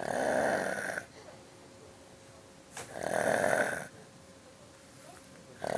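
A sleeping man snoring, one snore about every three seconds. Each snore lasts about a second; the third starts at the very end.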